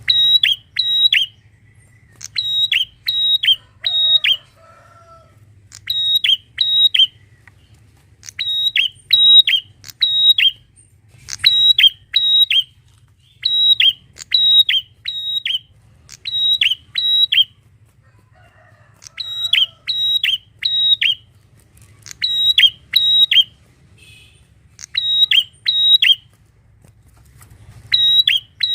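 Prinia (prenjak) calling: loud, sharp, high chirps in quick groups of two to four notes, a group every second or two with short pauses.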